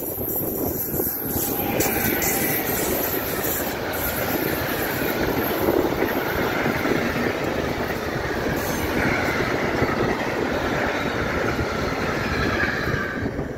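A Stadler EuroDual locomotive passes close by, followed by a long train of rail tank wagons rolling past with a steady, loud rumble and a wavering high wheel squeal. The noise falls away suddenly near the end as the last wagon goes by.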